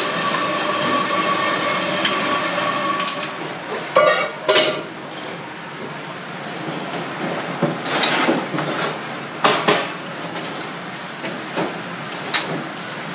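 A steady whirring hum with a few whining tones cuts off about three and a half seconds in. Then come scattered clatters and knocks of a ceramic plate, steel pot and utensils as the stew is dished out, sharpest about four and eight seconds in.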